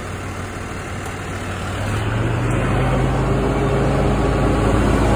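Vacuum truck's engine running steadily while the hydraulic dump cylinder that tilts the tank is being worked; the engine sound grows louder and heavier about two seconds in.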